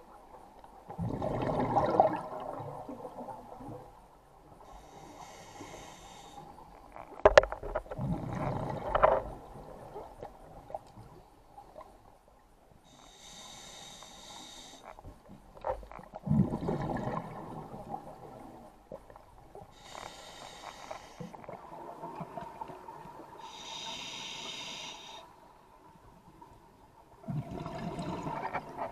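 Scuba diver breathing through a regulator underwater: slow breaths, each a high hiss on the inhale and a loud bubbling gurgle on the exhale, with four exhales spaced several seconds apart.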